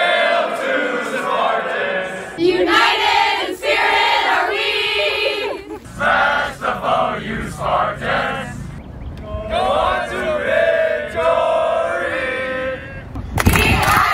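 Groups of students chanting a school fight song in unison, line by line, with a different group taking each line. Near the end the next group comes in with a loud shout of "Victory, victory".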